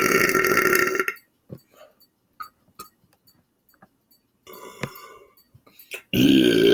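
A man's long, loud burp, held at a steady pitch and cutting off about a second in, followed by a few faint clicks and small mouth sounds.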